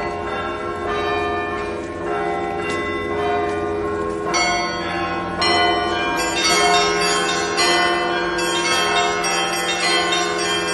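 Russian Orthodox church bells rung by hand in a festal peal (zvon). Low bells hum steadily underneath while smaller bells strike in a repeating pattern, roughly every half second to a second, which grows busier and brighter about four seconds in.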